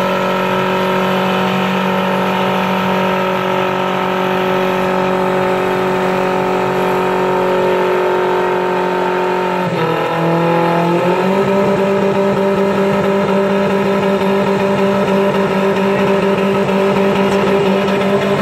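Minivan engine held at high revs during a burnout, its tyres spinning on the pavement. The engine note holds steady, dips briefly about ten seconds in, then climbs back and holds a little higher.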